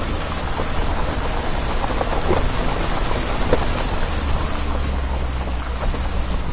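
A vehicle fording a shallow stony stream: water splashing and rushing around the wheels, over a steady low engine hum, with a few scattered knocks.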